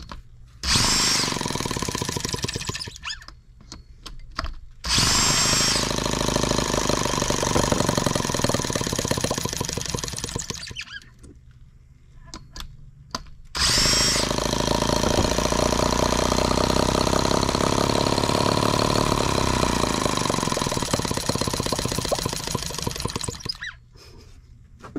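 An electric drill pressed to the flywheel spins over a Microcosm H76 twin-cylinder model gas engine in an attempt to start it: three cranking runs, short, then about five seconds, then about ten, each opening with a rising whine as the drill spins up.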